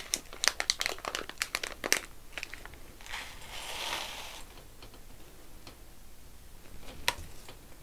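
Foil ration pouch crinkling with a run of sharp crackles as it is opened, then the dry buckwheat with meat and vegetables inside pouring out into a ceramic bowl as a soft rattling hiss for about a second and a half, a few seconds in.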